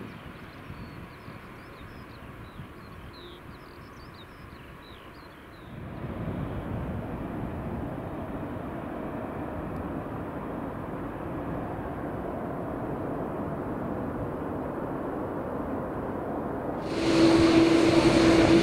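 American Airlines Boeing 767-300ER's GE CF6 jet engines during landing rollout with spoilers up: the engine noise swells into a steady rumble about six seconds in, as reverse thrust is applied after touchdown. Near the end a sudden, much louder sound with a steady hum takes over.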